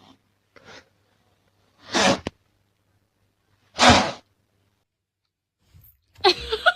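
Two sneezes about two seconds apart, each a short sharp burst of breath.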